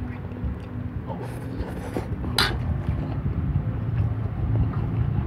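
Metal fork scraping and clinking on a ceramic plate, with one sharper clink about two and a half seconds in, over a steady low rumble.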